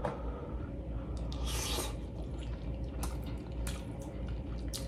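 Close-up chewing of a mouthful of rice and stew, soft and wet, with a few faint mouth clicks in the second half.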